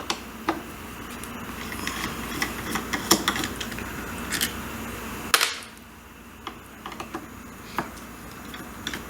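Phillips screwdriver backing out the small cover screws of a two-stroke carburetor: scattered light clicks and taps of metal, with a sharper click about five seconds in.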